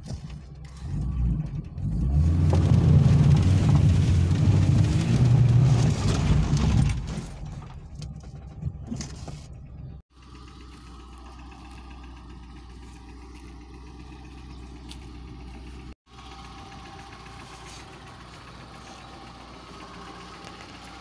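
Car engine running, loud for a few seconds and then fading, followed by a steady quieter engine hum, broken twice by abrupt dropouts.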